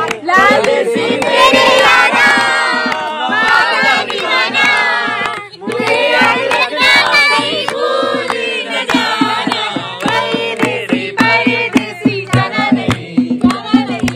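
Several people singing a Hindi song together, with a dholak drum keeping the beat.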